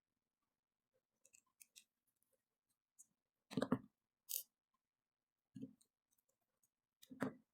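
Spinning-reel parts and small tools being handled during disassembly: scattered light clicks, with a few louder clatters of parts set down or knocked together, about midway and again near the end.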